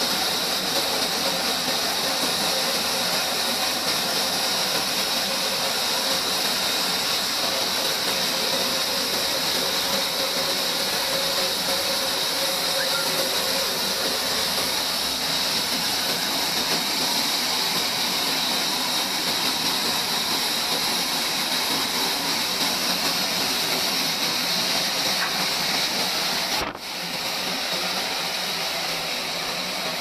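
Band sawmill cutting through a large wooden log: a steady, dense, hissing saw noise with a strong high band. Near the end it drops out for an instant and comes back slightly quieter.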